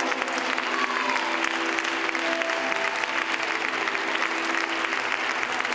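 Audience applauding, many hands clapping densely and steadily, over a held musical tone.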